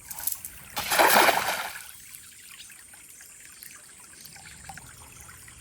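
A splash in water lasting about a second, about a second in, then faint trickling water.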